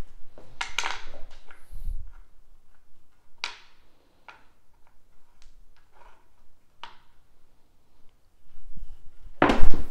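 A pair of craps dice thrown down a felt table: a few light clicks, then a loud clatter near the end as the dice strike the layout and bounce off the dimpled back wall.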